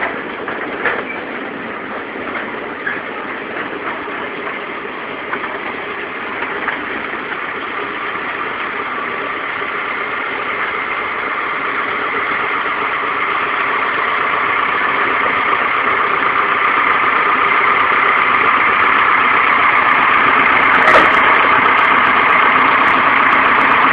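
Engine of a small two-foot-gauge locomotive running steadily and growing louder as it draws near, with light clicks of the cars' wheels on the rails in the first several seconds. A single sharp knock about 21 seconds in.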